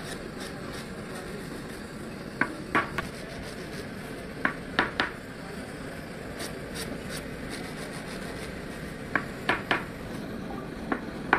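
Sharp metallic clinks and knocks, hard objects striking metal in short groups of two or three, over a steady background noise.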